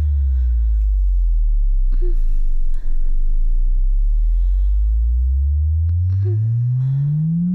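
Headphone test bass sweep: a pure sine tone glides down to a very low bass of about 50 Hz in the first second, holds there, then glides back up through the bass near the end. It is meant to shake the headphone drivers, and it should stay clean with no buzz or rattle.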